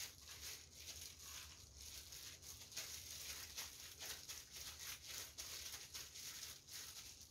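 Faint rustling and crinkling of disposable plastic gloves as hands work and shape mashed kabocha squash mixture in a glass bowl, in many small, irregular handling noises.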